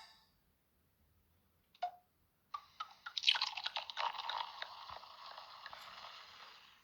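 Samsung SGH-L310 mobile phone playing a sound-effect ringtone through its small speaker. A single short blip is followed after a pause by a dense run of rapid clicks and crackle, loudest about a second after it starts, which then thins out and fades away.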